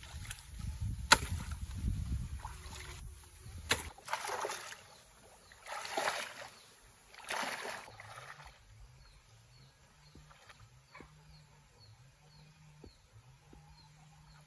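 A hoe chops into mud and water in a shallow channel: a few sharp strikes over a low rumble. Then water splashes three times as someone wades through shallow pond water. Near the end, faint high chirps repeat quickly.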